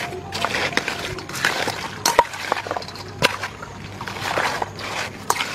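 Frogs, lemongrass and herbs being tossed and mixed by hand in a stainless steel bowl: irregular rustling with scattered clicks and knocks, and a few brief clinks against the metal bowl.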